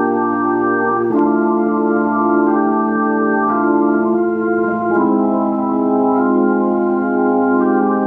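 Restored Hammond C-3 tonewheel organ played through a Leslie 147 rotating speaker: held chords that move to new chords a few times, with a slight waver in the sustained notes.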